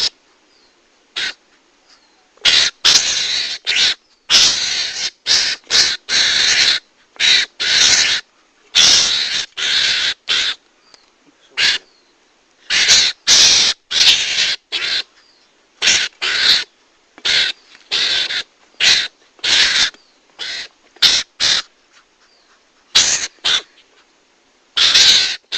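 Mongoose (garangan) calls played as a hunting lure: harsh, raspy squeals in quick bursts, coming in irregular clusters with short gaps between them.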